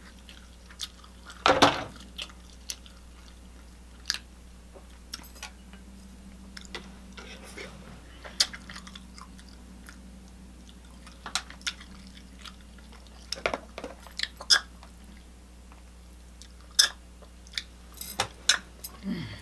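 Close-up eating sounds: chewing, with irregular sharp clicks and cracks of crab shell being broken and picked apart. There is a louder cluster about a second and a half in and again near the end.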